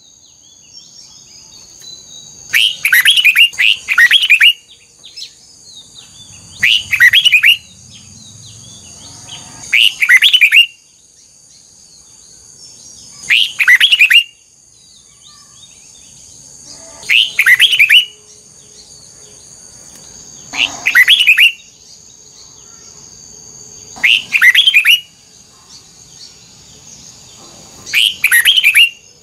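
Red-whiskered bulbul singing short, loud phrases of quick whistled notes, one phrase roughly every three to four seconds.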